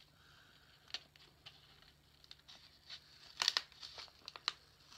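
Washi tape being slowly peeled off a paper card, with soft irregular paper crinkling and crackling; a cluster of sharper crackles comes about three and a half seconds in.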